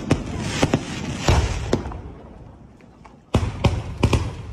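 Large-shell multi-shot fireworks cake firing aerial shells. A sharp bang at the start is followed by several more booms that die away, then a second volley of bangs begins a little over three seconds in.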